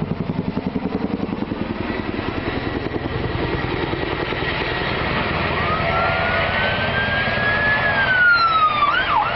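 Black Hawk-type military helicopter hovering, its rotor beating in rapid, even pulses that are loudest in the first few seconds. About five seconds in, an emergency vehicle siren starts: a slow wail that climbs, drops, then switches to a fast yelp near the end.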